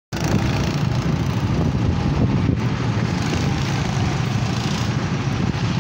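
Go-kart engines running on the track as a loud, steady drone.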